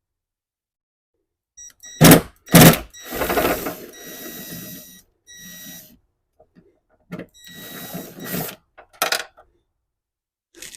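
Socket wrench with a deep socket working a 10 mm nut off the hatch's trunk switch panel: two loud knocks about two seconds in, then several stretches of ratcheting, with more knocks near the end.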